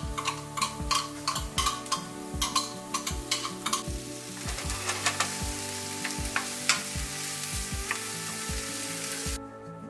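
Chopped onion frying in oil in a nonstick frying pan, stirred with a wooden spatula. Sharp taps and scrapes of the spatula on the pan come first; about four seconds in, a steady sizzle starts, then stops abruptly shortly before the end.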